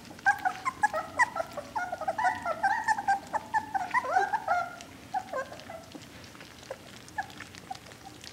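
A litter of young puppies crowded around a food plate, giving many quick, high-pitched whines and squeals while they eat, with wet slurping underneath. The cries are densest in the first five seconds, then thin out.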